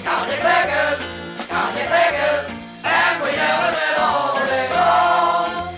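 Choir singing a jingle-style song over instrumental backing, with sustained sung notes.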